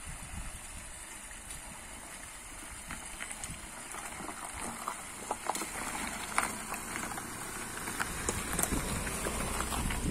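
Tata Nexon SUV rolling slowly over a stony causeway and passing close by, tyres crunching and popping on gravel and loose stones. Its low engine rumble grows louder over the last couple of seconds as it goes by, over a steady high hiss.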